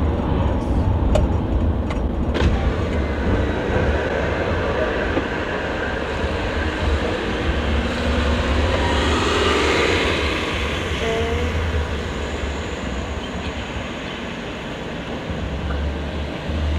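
Steady engine and road noise heard inside a car's cabin on a wet road, with a few light clicks in the first couple of seconds. The noise eases off as the car slows toward a stop.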